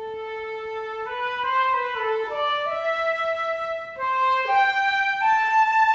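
Solo flute playing a short, mostly rising melody, one note at a time, recorded in a small studio. There is a brief break between phrases about four seconds in.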